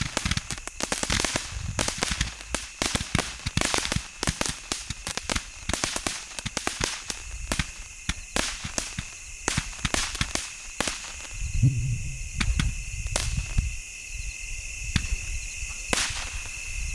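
A 280-shot repeater firework firing in rapid succession, shot after shot launching stars that break with sharp, loud cracks, the reports coming thick and fast. A spell of deeper booms comes about twelve seconds in.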